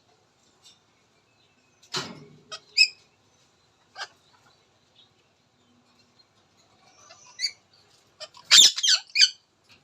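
Indian ringneck parakeet giving short, scattered squawks and chirps, with a louder run of squawks near the end.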